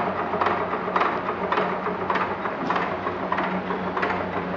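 1919 Economy 2½ hp Model E hit-and-miss engine running, a steady hum with a regular mechanical click about twice a second.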